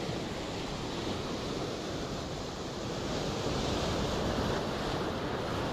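Sea surf breaking and washing over breakwater rocks: a steady rush of waves that swells slightly in the second half.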